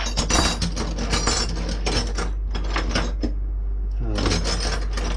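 Steel spanners clinking and scraping against one another as a hand rummages through a heap of them, a rapid string of metal clinks with a short lull about three seconds in.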